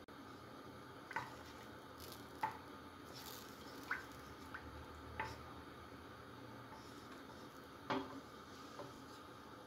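Butter melting in hot vegetable oil in a stainless steel pot, with a low steady sizzle and about six sharp ticks spread through it as a wooden spoon stirs.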